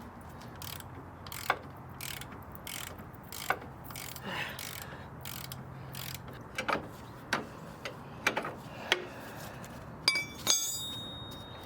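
Scattered metallic clicks and knocks from hand tools working on a car chassis, coming at uneven intervals. Near the end come two louder metal clanks; the second rings briefly.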